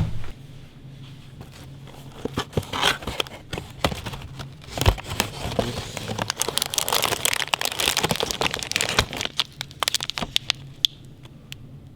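Packaging being handled: crinkling and rustling with many scattered clicks and light knocks, busiest from a couple of seconds in until near the end, over a faint steady low hum.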